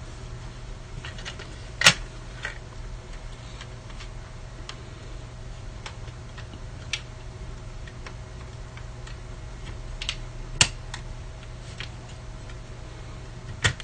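Scattered small clicks and taps of the DJ mixer's parts being handled during disassembly, a sharper one about two seconds in and another near eleven seconds, over a steady low hum.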